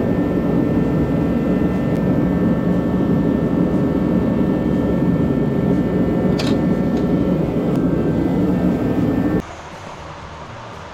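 A steady machine drone with a faint whine, which cuts off suddenly near the end.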